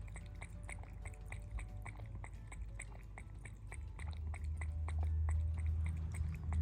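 A cat chewing: irregular short crunching clicks, several a second, with a low rumble that grows louder from about four seconds in.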